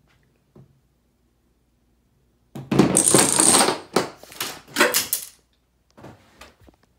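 Parts of a homemade chain-reaction contraption toppling: a loud, dense clatter of wooden blocks and dominoes that starts a couple of seconds in and lasts about three seconds. A bright metallic ring sounds at the start of the clatter, and a few separate knocks come near its end. A couple of lighter clicks follow near the end.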